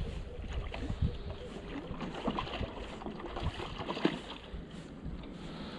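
Wind rumbling on the microphone over water noise around a small fishing boat, with scattered small knocks and clicks of handling on board. The rumble is strongest in the first second.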